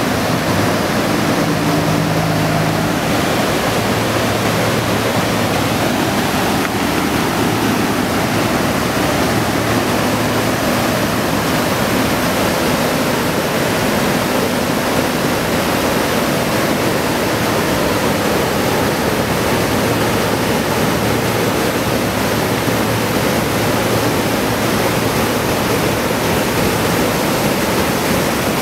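Floodwater rushing past in a fast, churning torrent, breaking into white water over a fence and debris: a loud, steady rush of water.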